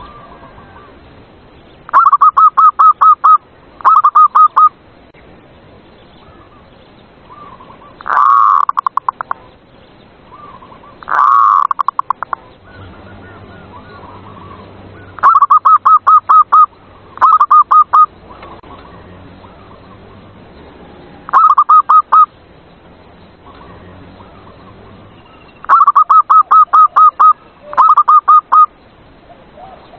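Zebra dove (perkutut) song: repeated phrases of rapid staccato coos, each a quick run of about seven or eight notes, with short gaps between phrases. Two louder, harsher calls come around a third of the way in.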